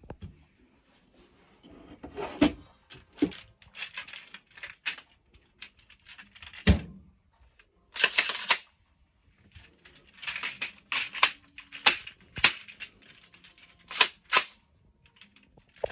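Irregular sharp clicks and clacks of an AR-style rifle being handled and a drum magazine being fitted to it. There is a dull knock partway through, a short rattle, and two sharp clicks near the end as the drum goes in.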